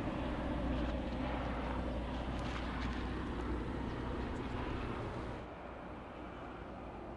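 Steady low drone of a distant engine over outdoor background noise, dropping in level about five seconds in.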